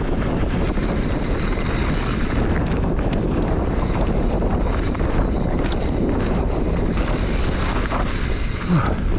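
Wind buffeting the microphone over mountain bike tyres rolling and sliding on a loose dirt and shale descent, with scattered clicks and rattles from the bike and stones.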